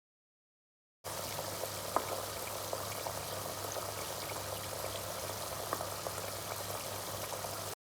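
Butter simmering into ghee in a pan: a steady bubbling sizzle with scattered small pops and crackles as its water cooks off. It starts about a second in and cuts off suddenly near the end.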